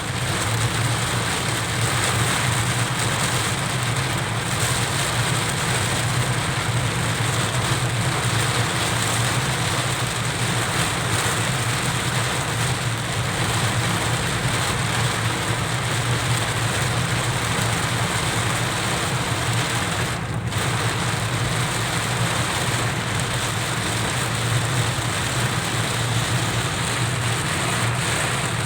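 Heavy rain beating steadily on a car's roof and windscreen, heard from inside the cabin over the car's steady engine hum.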